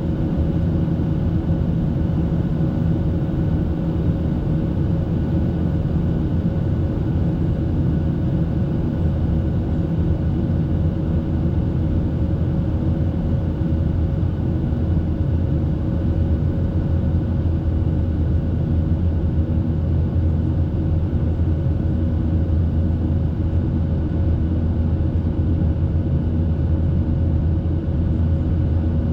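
Boeing 737-800 cabin noise in the climb: the CFM56-7B engines and rushing air give a steady deep drone with a few faint steady tones over it.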